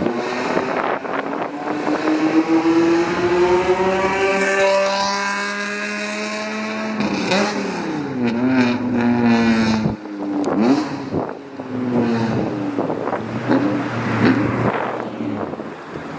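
Car engine accelerating, its pitch climbing steadily for about seven seconds, then dropping and rising again in several short revs.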